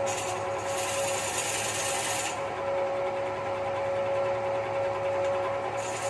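Wood lathe running with a steady hum while a hand-held turning chisel scrapes into a large spinning wooden cylinder, cutting a groove near one end. The higher, scratchy part of the cutting noise thins out from about two seconds in and comes back near the end.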